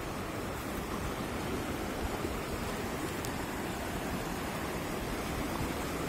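A mountain creek rushing steadily over rocks and small rapids.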